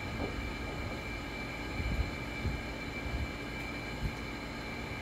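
A steady machine hum with a high, constant whine above it, and a few soft low bumps about two seconds in and again near four seconds.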